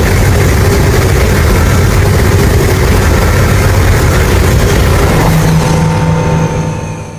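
Fan-made Monsterverse Godzilla sound effect: a loud, steady rumbling noise with a hiss over the top, fading away near the end.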